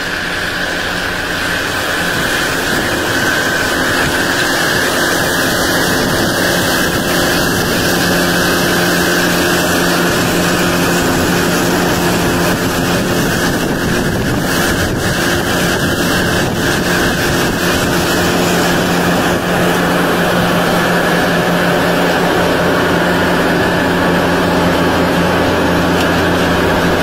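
John Deere 6430 tractor's diesel engine running steadily under load, with a front-mounted mower whirring as it cuts standing grass.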